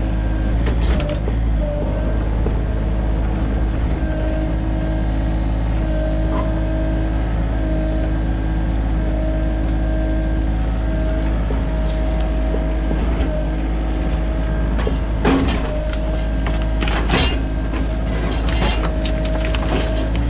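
Sany mini excavator's diesel engine running under load, with a hydraulic whine that wavers as the arm works against a tree. Sharp cracks of wood about fifteen and seventeen seconds in, and crackling near the end, as the tree splinters and gives way.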